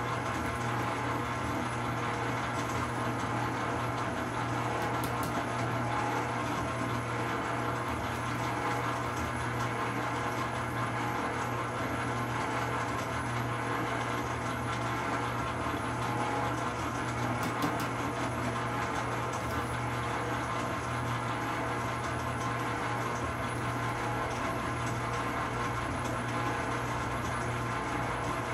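Commercial planetary stand mixer running steadily, its motor humming with a constant pitch as the beater works the contents of its stainless-steel bowl.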